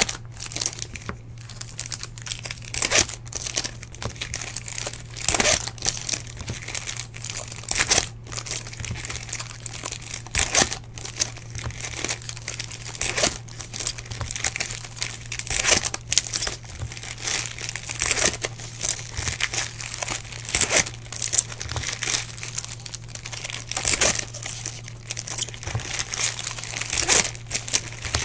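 Shiny trading-card pack wrappers (2017 Topps Chrome baseball packs) crinkling and tearing as packs are ripped open one after another, in many short crackly bursts over a steady low hum.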